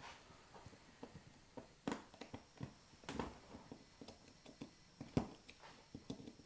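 Scattered small clicks and taps of hands working a small connector and its terminal screws, with sharper knocks about two seconds and five seconds in.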